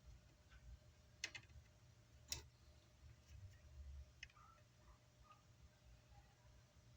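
Near silence with a faint hum and a few short, sharp clicks: two about a second and two and a half seconds in, and fainter ticks around four seconds.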